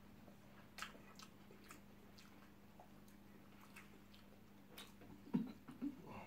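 Quiet chewing of spaghetti and chicken eaten by hand, with a scatter of soft wet mouth clicks and lip smacks over a faint steady hum. A short low vocal murmur comes near the end.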